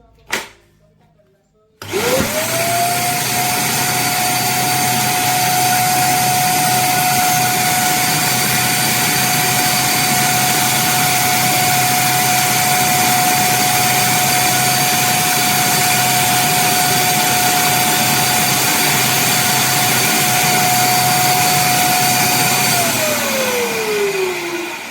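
Cecotec Conga Rockstar Wet & Dry Steel 1200 W wet-and-dry vacuum cleaner switched on about two seconds in. Its motor spins up quickly to a steady high whine over a loud rush of air and runs for about twenty seconds. Near the end it is switched off and winds down with a falling whine.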